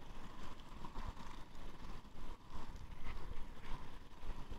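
Inline-skate wheels rolling on asphalt, with wind buffeting the microphone at downhill speed: a steady rumbling hiss that swells and dips.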